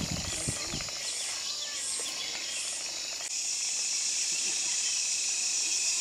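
Cicadas buzzing high-pitched, at first in pulses about twice a second, then a steady, louder drone from about three seconds in. A few low thuds come in the first second.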